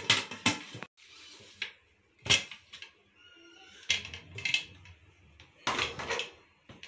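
Aluminium pressure cooker being handled: metallic clanks and knocks as the locked lid and handle are worked and the pot is set down on a gas stove burner. There are about six separate knocks, the loudest about two seconds in, some with a faint metallic ring.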